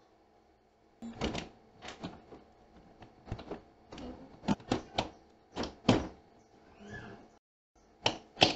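Aluminium pressure cooker lid being fitted onto the pot and its handles brought together to lock it: a series of irregular metal clinks and knocks.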